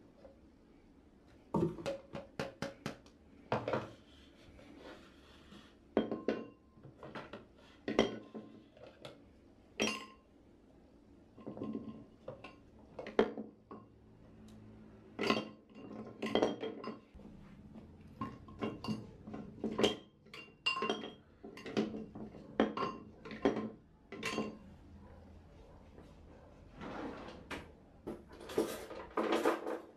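Kitchen utensils and a wire whisk clinking and knocking as they are taken out of a plastic holder and set into a stoneware utensil crock, in irregular clatters, some strikes with a brief ring.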